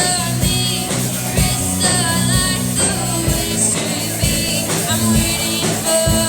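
Rock-and-roll style music with a singing voice over a steady beat.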